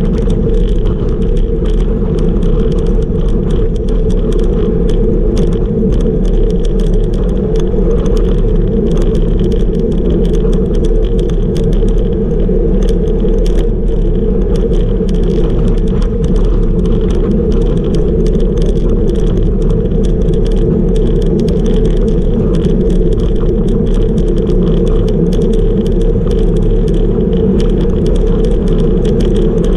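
Wind buffeting the microphone of a camera on a road bike at about 38 km/h, with steady tyre noise on rough asphalt and light, frequent ticking and rattling from the bike and mount.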